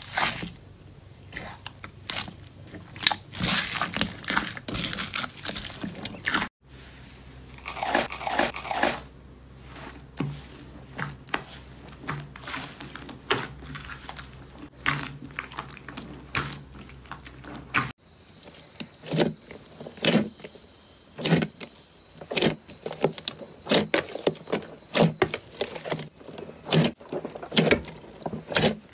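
Hands pressing and kneading slime close to the microphone: first a bowl of crunchy bead slime with a crisp crackling crunch, then, after a cut about six seconds in, thick slime being stretched and folded, and after another cut about 18 seconds in, glossy slime squeezed with wet squelches and a quick run of sharp clicks.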